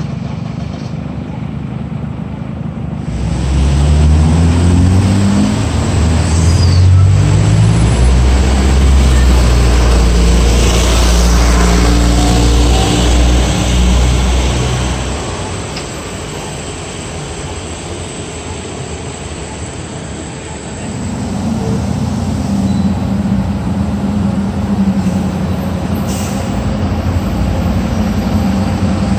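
A large vehicle's engine pulling away, its pitch climbing in steps through the gears, then running loud and low before fading about fifteen seconds in. A steady engine hum takes over again a few seconds later.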